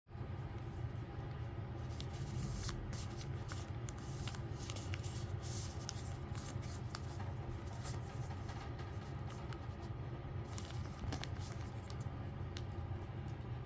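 Hands handling and opening photo-card packaging: scattered rustles and small clicks over a steady low hum.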